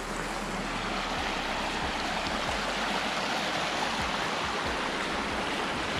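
Shallow rocky creek water rushing and splashing steadily.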